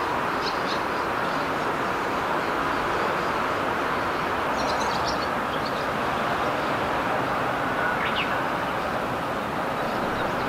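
Outdoor ambience: a steady rushing noise, with a few short bird chirps about half a second in, around five seconds in and about eight seconds in.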